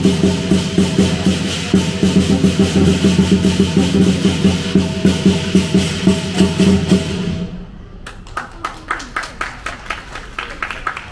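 Southern lion dance percussion: a big lion drum beaten fast and steadily under clashing cymbals and gong. About seven and a half seconds in, the cymbals and heavy drum beats stop and only lighter, quicker taps carry on, about four a second.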